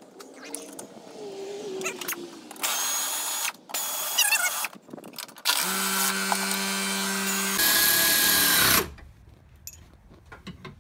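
Power ratchet running in three bursts, the last about three seconds long with a steady motor whine, driving 10 mm bolts into a powder-coated radiator core support.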